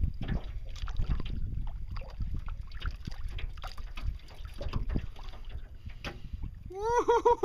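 Wind buffeting the microphone and water slapping a jon boat's hull, with small knocks and rattles while a fishing reel is cranked. Near the end a loud pitched call comes in, made of quick wavering pulses.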